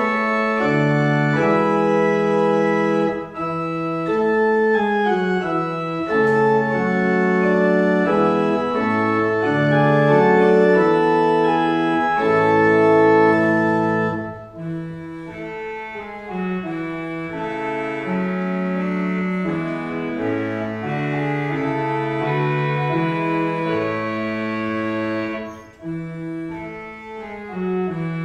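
Church organ playing a slow piece in sustained chords over a moving bass line, with short breaks between phrases about halfway through and near the end.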